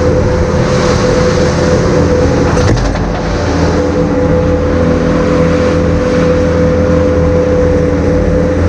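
Skid steer running steadily under load while scraping manure from a barnyard floor, with the engine rumble and a steady whine over it.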